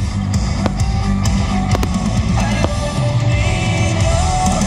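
Rock music with drums and guitar accompanying a firework display, with several sharp cracks of fireworks bursting through it in the first couple of seconds.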